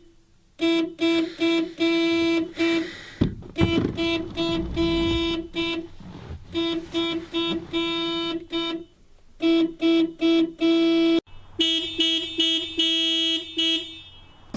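Car alarm sounding the car's horn in repeated beeps of one steady pitch, some short and some held longer, with brief gaps between them. A thump about three seconds in.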